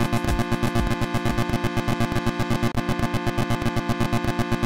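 Electronic music track built from loops: sustained synth chords chopped into a fast, even pulse of about eight beats a second, over low bass.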